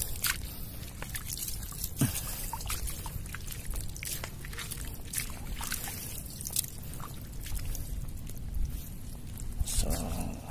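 Shallow seawater dripping, trickling and splashing in many small irregular splashes as seaweed is picked by hand from tidal shallows, over a steady low rumble.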